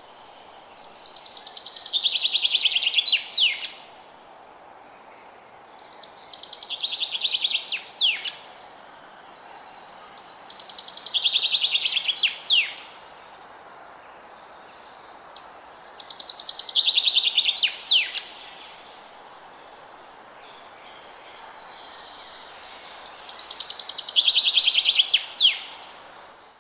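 A songbird singing the same phrase five times, about every five seconds: a rapid trill of high notes that swells for about two seconds and ends in one or two sharp downward-sweeping notes. A steady low hiss of background noise lies beneath.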